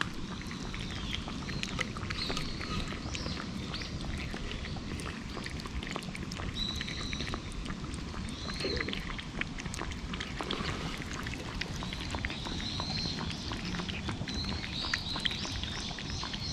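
A cat lapping water from a shallow stream: a continual run of quick, wet tongue clicks. High chirping calls of birds come and go behind it.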